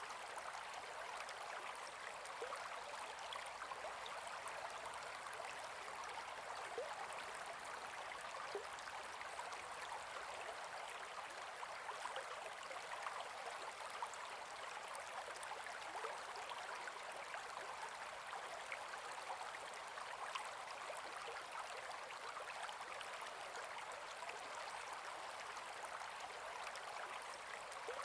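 Gentle forest river flowing: a steady, even rush of water with many small trickles and splashes through it.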